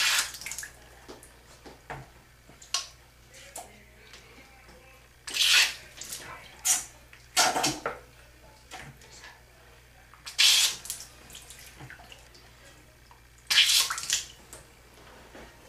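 Short spurts of water from a needle-less syringe, splashing as the ears are flushed of wax over a sink. There are about six brief hissing squirts a few seconds apart.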